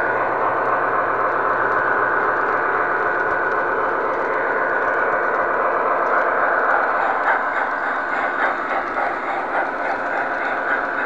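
MTH O-gauge model train running on three-rail O-31 track, heard up close from a camera riding on it: a steady rolling rumble and motor whine, with a run of clicks over rail joints from about seven seconds in.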